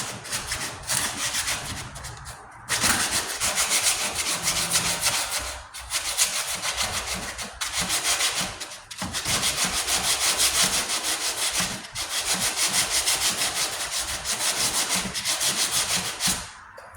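40-grit sandpaper being rubbed in quick back-and-forth strokes over primer and body filler on a steel tailgate patch, in several bouts with short pauses between them. The sanding is working through the primer down to bare metal on a high spot.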